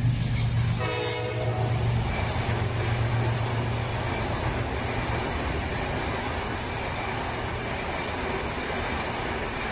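A diesel locomotive passes close by, sounding one short horn blast about a second in. Its engine drone fades after about five seconds, leaving the steady rolling noise of the passenger coaches going by.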